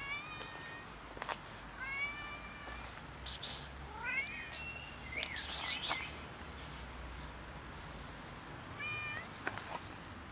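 A tabby cat meowing about five times in short calls, one rising in pitch about four seconds in. A few short scratchy noises sound between the calls.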